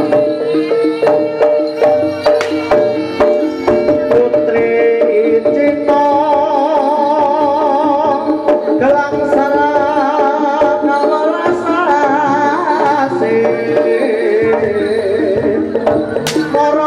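Javanese jaranan music: hand drums beating with steady gamelan tones. A wavering melody line comes in about six seconds in.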